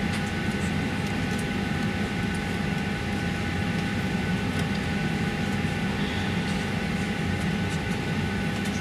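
Steady cabin hum of a Boeing 737 parked at the gate, its air-conditioning running: a low rumble with a few steady tones above it.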